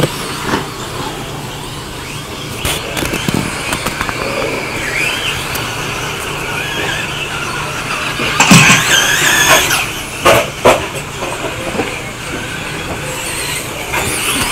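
Radio-controlled 2WD stadium trucks racing on a dirt track: a high-pitched whine rising and falling as they speed up and slow down, louder for a stretch just past the middle, with a few sharp knocks soon after.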